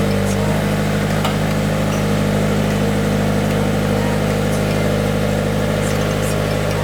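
Subaru BRZ's 2.0-litre flat-four boxer engine idling steadily, freshly started.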